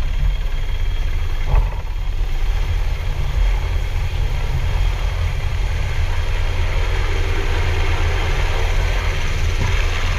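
Outboard motor of a rigid inflatable rescue boat running steadily at low speed, a constant low drone over a hiss of wind and water. A brief thump about a second and a half in.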